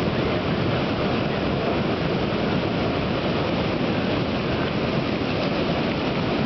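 Rushing floodwater: a muddy river in full flood pouring past, a loud, steady, unbroken rush.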